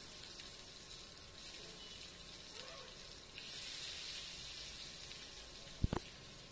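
Vegetables sizzling in a hot wok, the hiss rising about three and a half seconds in as more are scraped in from a cutting board. Two sharp knocks near the end.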